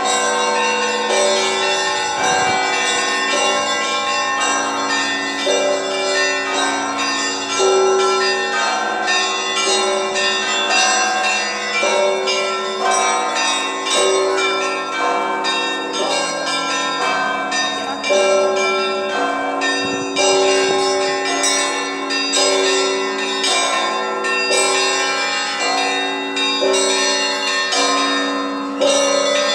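Russian Orthodox church bells rung in a continuous peal. Higher bells are struck in a rapid, dense pattern over lower bells that ring on with long tones.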